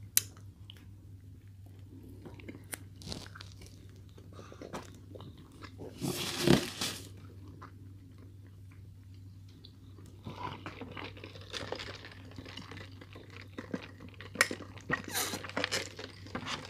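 Close-miked chewing and biting of McDonald's sandwiches, with small wet clicks and crunches, busier in the second half, over a steady low hum. A louder noisy burst comes about six seconds in.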